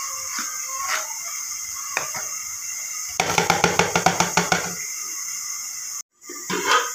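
A quick, even run of knocks, about ten a second for a second and a half, over a steady hiss.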